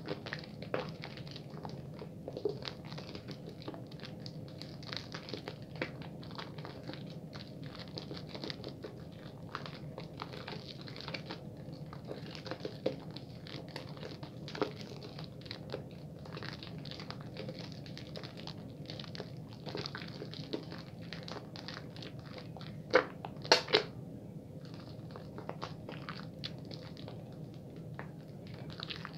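Bar soap being lathered quickly between wet hands: continuous squishing and crackling of the lather, with a few louder sharp clicks late on.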